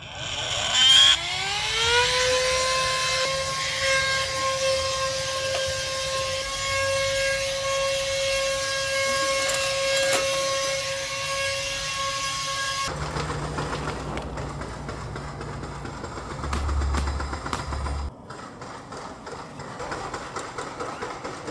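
Handheld cordless vacuum cleaner switched on: its motor whine rises in pitch for about two seconds, then runs at a steady high pitch. It cuts off abruptly a little past halfway, leaving a rougher noise with a low hum.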